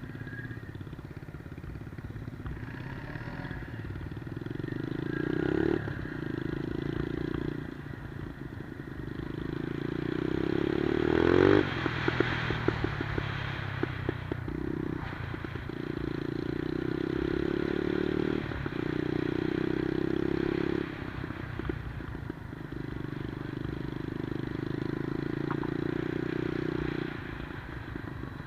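The 110cc single-cylinder four-stroke engine of a Monkey-style minibike being ridden, climbing through the revs several times. The hardest climb peaks about eleven seconds in and breaks into a quick run of crackles as the throttle closes. It then settles into steadier stretches at even revs.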